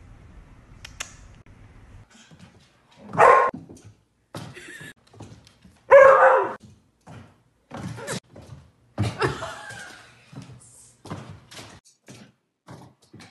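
A dog barking: two loud barks about three and six seconds in, then a run of shorter, quieter barks.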